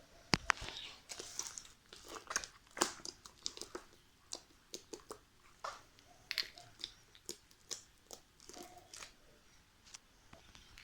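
Slime being squeezed and poked by hand, giving irregular crackling, popping clicks.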